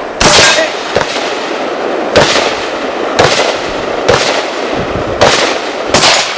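Rifle shots from an AR-15 in 5.56/.223, seven deliberate shots about a second apart, each with a short echo.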